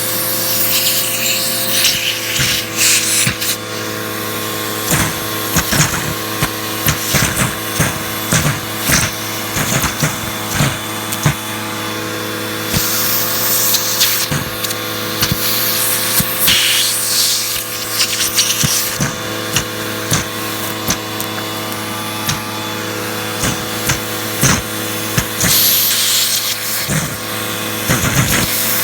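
Hoover vacuum cleaner running with a steady motor hum, over many small clicks and rattles and a few bursts of rushing hiss lasting a second or two.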